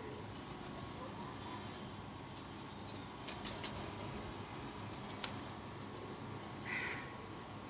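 A scattering of sharp little clicks and taps over a steady faint hiss: one about two seconds in, a quick cluster about three seconds in, and more around five seconds in, followed by a short scratchy sound near the end.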